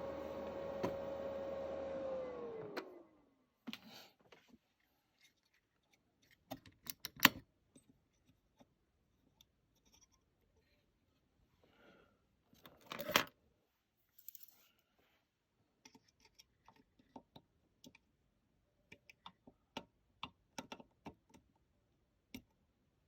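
A steady whine with hum that falls in pitch and dies away about two and a half seconds in, as the amplifier is powered down. Then come scattered clicks and knocks of tools and parts being handled while the amplifier is worked on, with two louder clatters about seven and thirteen seconds in.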